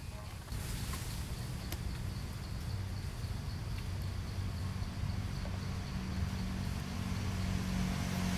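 Forest ambience: a low, steady rumble, with an insect calling faintly in a quick, even pulse above it.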